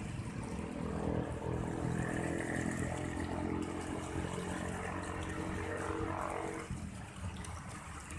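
A steady engine-like drone with several even tones, starting about a second in and stopping abruptly near seven seconds.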